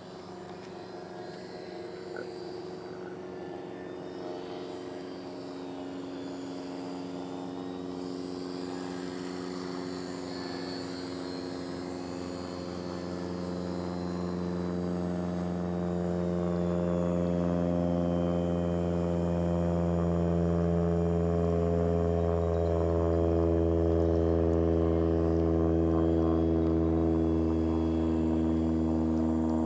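Electric radio-controlled model airplane's motor and propeller buzzing overhead in a steady hum, growing gradually louder.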